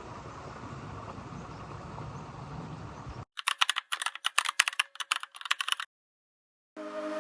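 A steady low rumbling background noise, then an abrupt cut to a rapid, uneven run of computer-keyboard typing clicks lasting about two and a half seconds. The clicks stop dead, and music starts near the end.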